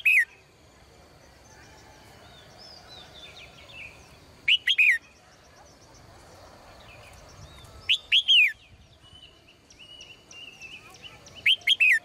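Female red-whiskered bulbul singing short, loud phrases of a few arching whistled notes, one about every four seconds, with fainter chirps of other birds between them.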